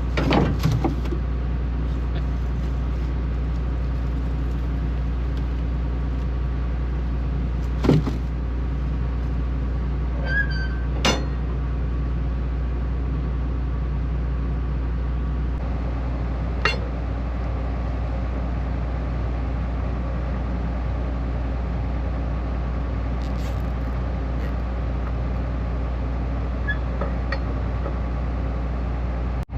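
Combine engine running with a steady low drone, with a few sharp knocks and clinks over it, a little after the start, around 8 and 11 seconds in, and once more around 17 seconds.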